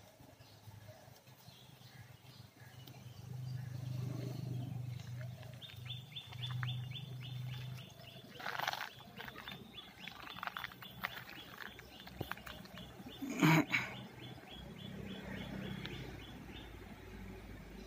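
Street dogs growling low, in stretches of a few seconds. A short loud sound comes about thirteen seconds in, and a fast, high, even chirping runs through the middle.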